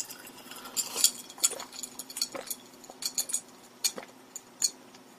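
A man gulping down a glass of cold drink: a few soft swallowing clicks spread over several seconds, with faint glass clinks.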